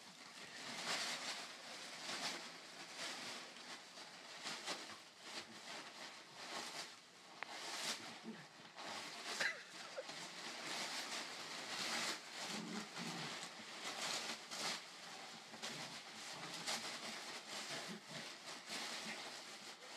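Crumpled brown kraft packing paper crinkling and rustling as two dogs dig, nose and tug through a pile of it: continuous uneven scuffling with many short crackles.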